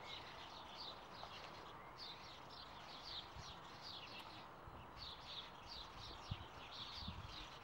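Faint birdsong: a songbird repeating quick, high, falling chirps in short runs over a steady hiss.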